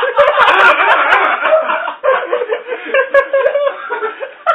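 Several people laughing at once, with their voices overlapping.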